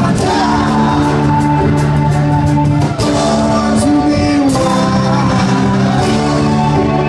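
Live bluegrass band playing acoustic guitar, banjo, mandolins and fiddle, with voices singing along.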